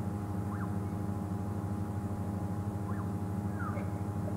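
Game-drive vehicle's engine idling steadily, with about three brief bird chirps over it.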